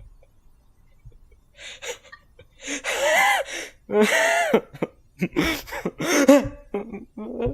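A person's loud, drawn-out breathy cries, two of them about three seconds in, followed by a run of short gasping vocal bursts.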